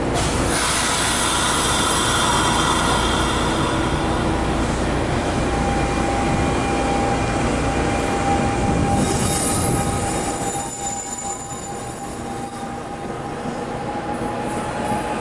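Train rolling past with its wheels squealing in several high steady tones over a continuous rumble; the squeal is loudest at the start and rises again about nine seconds in.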